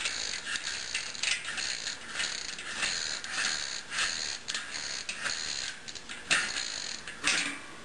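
Threaded bicycle freewheel being unscrewed from the rear hub, its ratchet pawls clicking about three times a second, a little unevenly.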